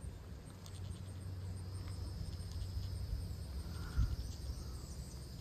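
Insects chirping, a steady high buzz over a low rumble, with one short thump about four seconds in.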